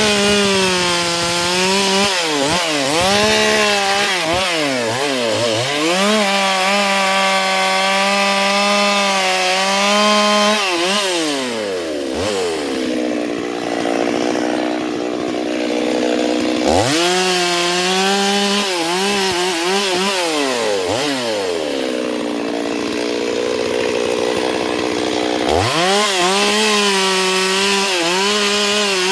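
Chainsaw cutting a rubber tree trunk, its engine pitch repeatedly sagging and recovering as the chain bites into the wood. Twice, once about midway and again a few seconds from the end, it settles to a lower steady speed before revving back up to cut.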